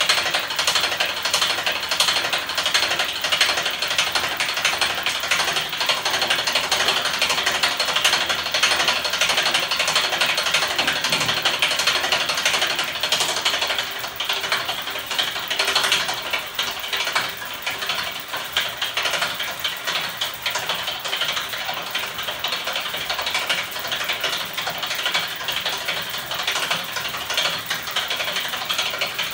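Homemade electric-motor-driven magnet 'ornithopter engine' spinning fast in its aluminium frame, its moving parts making a steady, rapid mechanical clatter. It gets a little quieter about fourteen seconds in.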